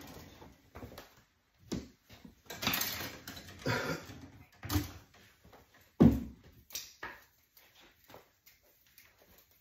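Hands working wiring in an electrical breaker panel: rustling of cables and scattered knocks and clicks, the loudest a sharp knock about six seconds in, with only small clicks toward the end.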